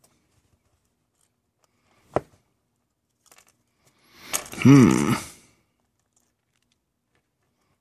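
A spudger prying at the plastic cap of a solar garden light: a sharp click about two seconds in, then a creak with a bending pitch lasting about a second, a little past the middle.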